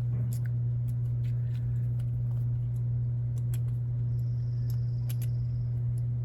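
Light metallic clicks and taps of a hex driver working the small screws of an RC beadlock wheel ring, over a steady low hum.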